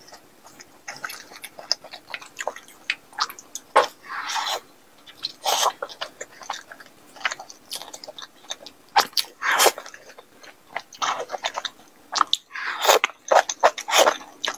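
Close-up eating sounds: wet chewing and lip smacking as a soft braised egg is bitten and eaten, with a couple of longer slurps, and noodles slurped near the end.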